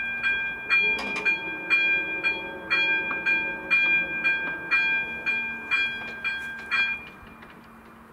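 Electronic warning bell of a Czech AŽD 97 level-crossing signal, striking about twice a second with a ringing tone, and stopping about seven seconds in once the barriers are down. Underneath, the barrier drives hum from about a second in as the booms lower.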